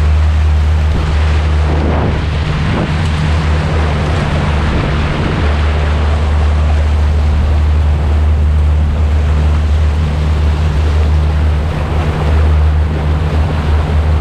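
Floodwater rushing and splashing in a bow wave along the side of a Mitsubishi Pajero 4x4 as it wades through bonnet-deep water, over the steady low drone of its engine.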